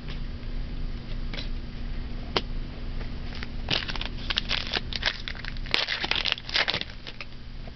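A trading-card pack wrapper being handled and torn open: scattered light crinkles, then a dense run of crinkling and tearing for about three seconds from midway.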